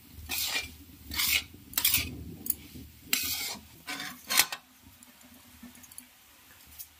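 Metal spatula stirring and scraping crumbly roasted moong dal around a kadhai, about seven short strokes, ending with a scrape and clink as mawa (khoya) is scooped from a steel bowl into the pan about four seconds in; the last couple of seconds are quieter.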